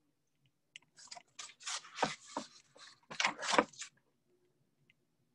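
Crunching, scraping handling noise, close to the microphone, in several bursts from about a second in until about four seconds in.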